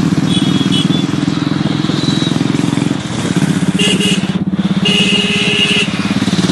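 Motorcycle engine running steadily with an even pulsing beat. Brief high tones sound twice, at about four and five seconds in.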